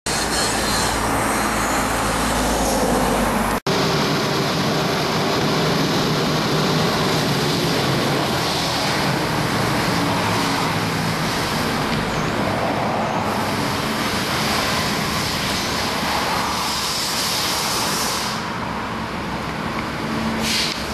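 Aston Martin DB9's V12 engine running at low revs as the car rolls slowly, under steady wash-bay and traffic noise. The sound cuts out for a moment about three and a half seconds in.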